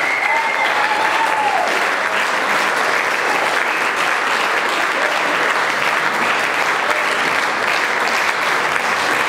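Audience applauding steadily after a concert, with cheering over it in the first couple of seconds.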